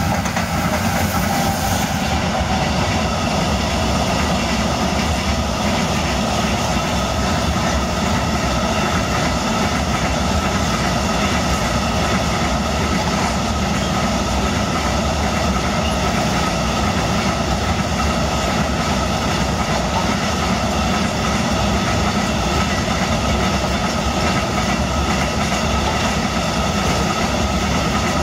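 Freight train passing close by behind an electric locomotive: the wagons' wheels running on the rails in a steady, loud rush that does not let up.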